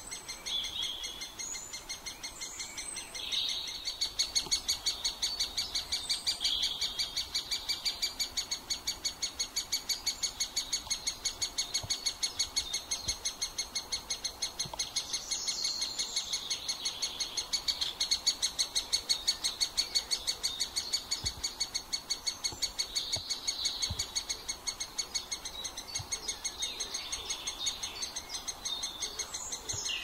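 Great spotted woodpeckers calling: a rapid, steady run of repeated high calls, several a second, which swells louder a few seconds in and again around the middle.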